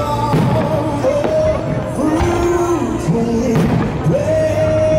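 Music with long held sung notes, over fireworks bursting overhead, with a few bangs through it.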